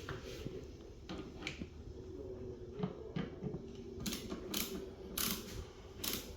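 Irregular clicks and knocks of hand tools and plastic parts being handled on a car's engine air filter housing, with several short hissing bursts about two-thirds of the way through.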